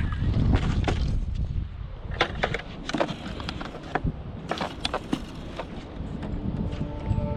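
Wind rumbling on the microphone, easing after about a second, then a scattered run of sharp knocks and clicks through the middle.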